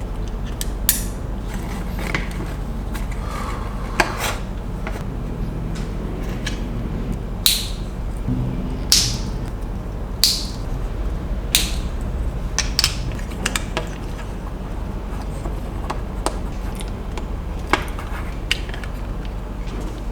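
Small plastic building bricks handled and pressed together, giving irregular sharp clicks and clatters over a steady low hum.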